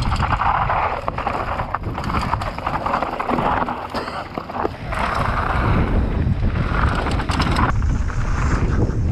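Mountain bike riding down a rough dirt trail: wind on the microphone, tyres hissing over loose ground, and a steady run of clattering knocks as the bike hits bumps.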